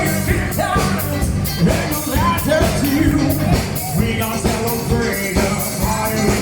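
Rock-style music with a singing voice over a steady drum beat and bass.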